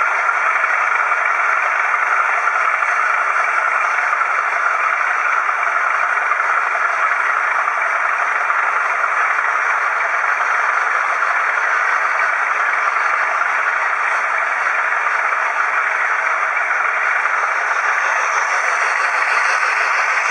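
Steady rolling noise of an OO-gauge model railway wagon running along the track, heard from on board the moving wagon, an even hum without distinct clicks.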